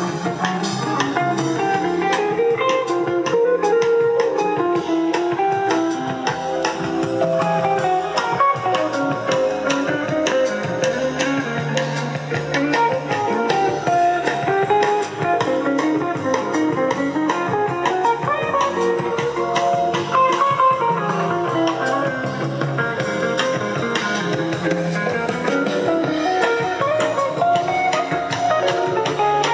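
Recorded guitar music playing back through a 1929 Victor (RCA) amplifier with type 245 triode output tubes and a Victor BA-40 loudspeaker, continuous and steady in level.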